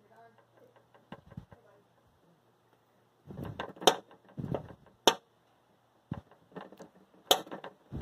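Butter knife scraping at a small bluegill on a glass tabletop: short rasping strokes starting about three seconds in, with a few sharp clicks.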